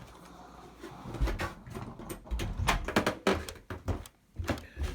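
Irregular clicks, knocks and clatter of hard objects being handled, with a couple of dull low thumps.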